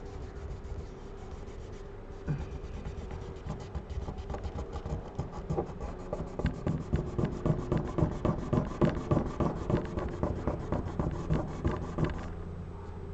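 Microfiber cloth wet with isopropyl alcohol rubbed back and forth in rapid strokes over the iPad's frame, scrubbing away leftover screen adhesive. The strokes grow louder about halfway through and stop suddenly shortly before the end.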